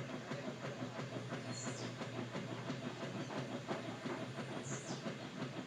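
Whirlpool washing machine running with a fast, steady clatter and a brief high squeak about every three seconds.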